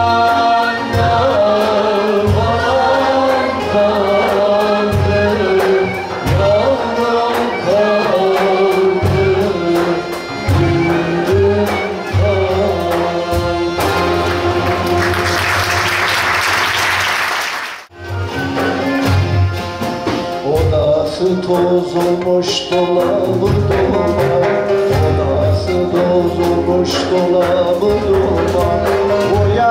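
Turkish folk music: a man singing with an ensemble of wooden flutes, bağlamas and a frame drum keeping a steady beat. About halfway through, a burst of hiss-like noise swells for a few seconds and cuts off suddenly, then the music goes on.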